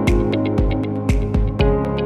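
Electronic background music with a steady beat: a low kick drum about twice a second, ticking hi-hats and sustained synthesizer chords.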